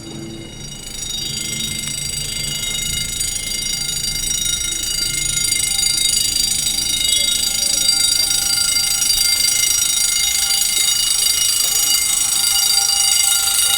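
Building fire alarms going off with a steady, shrill tone that grows gradually louder. They were set off during fire-hydrant flushing, for a reason the hydrant tester doesn't know.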